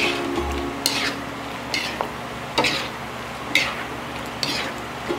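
A utensil scraping around a metal wok, stirring thick sweet and sour sauce with vegetables, about one stroke a second, over a steady sizzle of the sauce on the heat.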